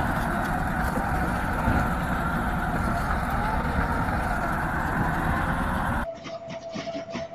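A heavy vehicle running loudly and steadily, cut off abruptly about six seconds in by a quieter scene that carries a faint steady tone.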